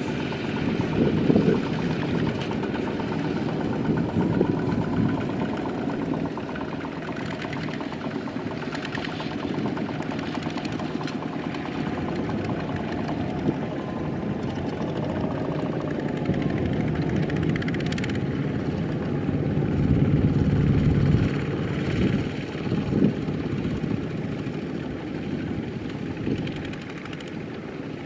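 Kubota ZT120 single-cylinder diesel engine of a two-wheel walking tractor running steadily with a fast even chug, working to pull a loaded rice trailer bogged in deep mud. It gets a little louder around twenty seconds in.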